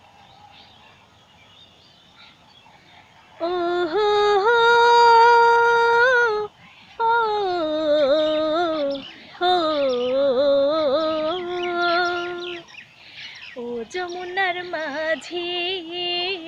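A woman singing unaccompanied in long held, gliding notes without clear words, in four phrases with short breaks between them, leading into a Bengali folk song. The first few seconds hold only faint background sound.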